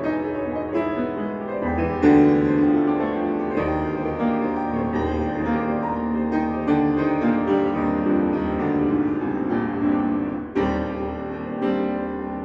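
Grand piano played solo: a busy passage of many notes over deep bass chords, with a loud accented chord about two seconds in and a fresh strong attack near the end.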